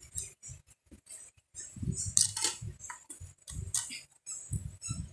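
Irregular clicks, taps and rustling of hands fitting a CD into a laptop's optical-drive tray, pressing the disc to snap it onto the tray's spindle.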